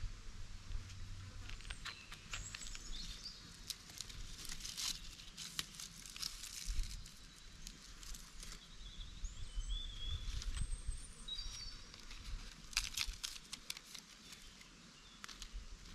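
Outdoor ambience: birds chirping now and then over a low steady hum, with clusters of sharp clicks and rustles.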